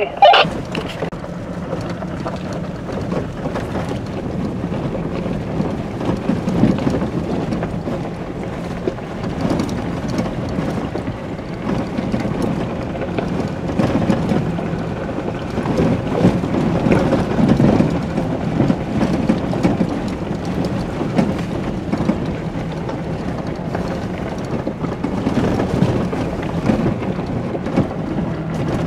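Inside a Jeep crawling along a rough gravel mountain trail: a steady engine hum under the uneven rumble and crunch of tyres over rocks, swelling and easing as the ground changes.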